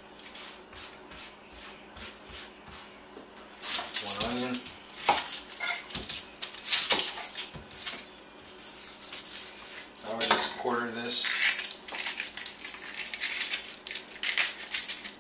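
A knife knocks sharply on a wooden cutting board a few times as an onion is cut, then the onion's dry papery skin rustles as it is peeled off by hand.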